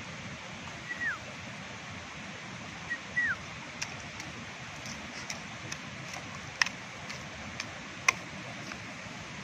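Steady rushing outdoor background noise. A bird gives two short whistled calls that slide downward, about a second in and again about three seconds in. Several sharp knocks follow in the second half, the loudest two about two-thirds of the way through and near the end.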